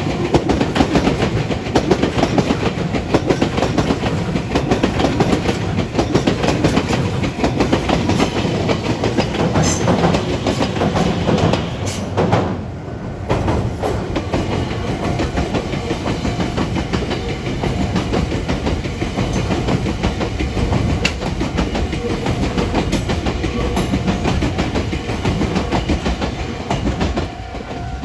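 Meitetsu electric express train running past, its wheels clattering over the rail joints, with a brief drop in the sound about halfway through.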